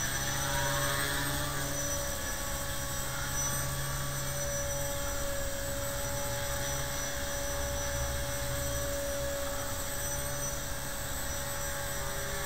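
HobbyKing HK250 electric RC helicopter in flight: a steady whine from its Turnigy motor and spinning rotors, holding nearly one pitch.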